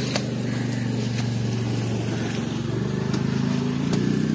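A small vehicle engine running steadily, a little louder near the end, with a few sharp knocks over it.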